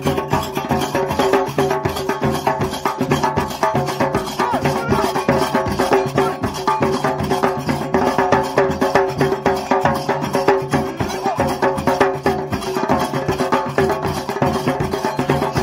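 Traditional drumming: a group of players beating large double-headed drums in a fast, dense, unbroken rhythm.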